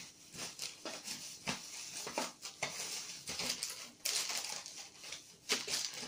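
A string of soft, irregular clicks and rustles from a packet of sliced ham being handled and opened.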